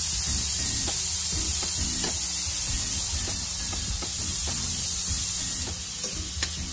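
Ground pork and chopped vegetables sizzling steadily in a frying pan as chopped bell pepper and chili are tipped in. Near the end a metal ladle starts stirring, with a few light knocks against the pan.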